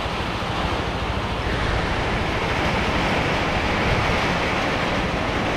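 Wind and road noise from a moving motorcycle, with an uneven engine rumble underneath. The hiss grows louder and brighter about a second and a half in.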